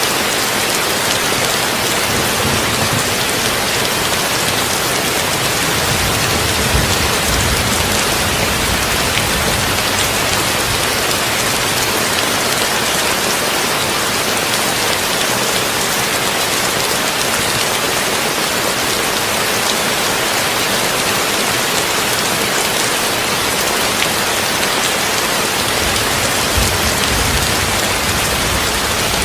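Heavy rain drumming steadily on a tin roof, a dense, even hiss. A low rumble swells underneath a few seconds in and again near the end.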